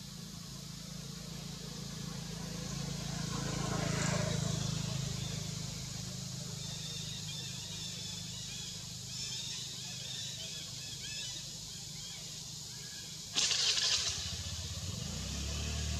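A motor engine runs steadily in the background as a low hum, swelling about four seconds in and easing off again. Near the end a sudden loud rushing noise lasts about half a second.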